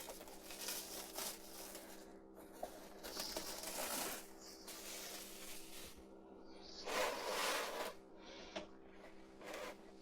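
Hands pulling and tearing pieces of Play-Doh off a large lump, making soft, irregular tearing and rubbing noises, loudest about three to four seconds in and again about seven seconds in.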